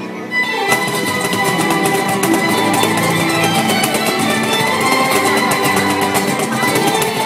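Flamenco music: plucked acoustic guitar playing over rapid percussive beats, typical of a cajón.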